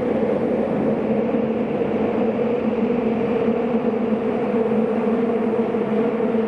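Running noise of a Tokyu 5000 series subway train in a tunnel, heard from inside the car: a steady rumble of wheels and running gear under an even hum, at constant speed between stations.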